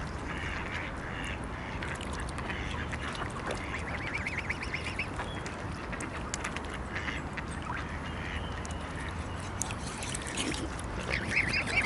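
Waterfowl calling: short, nasal, quack-like calls in quick runs, about four seconds in and again near the end, with small clicks in between.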